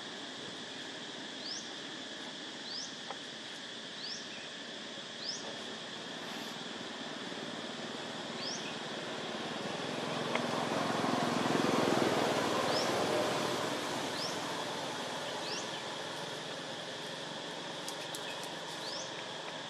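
Outdoor ambience: a steady high insect drone, with a short rising chirp repeated about once a second. A low rumble swells up in the middle and fades away again.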